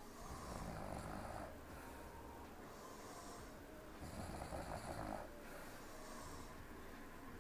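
A young woman snoring softly in her sleep: two snuffling snores about four seconds apart, with quieter breathing between them.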